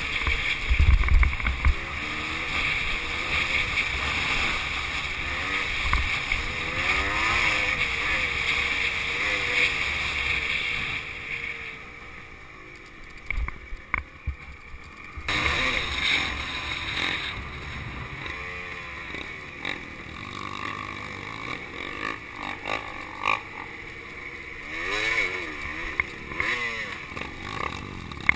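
Two-stroke dirt bike engine revving up and down as the bike is ridden over a dirt trail, with wind rushing over the microphone for the first ten seconds or so. After that the wind drops and the engine pitch rises and falls with the throttle.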